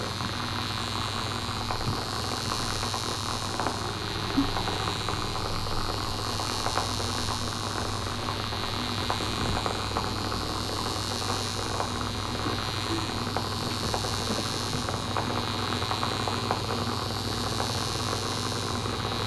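Steady hiss of background noise with a low hum and a thin high whine, with scattered faint clicks throughout.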